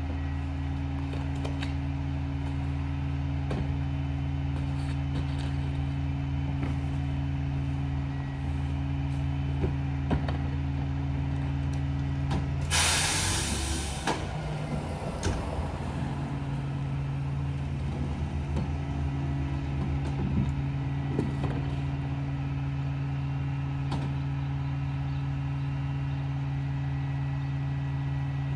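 Rear-loader garbage truck's engine idling steadily, with a loud hiss of released air from the air brakes lasting about a second near the middle, and scattered short knocks.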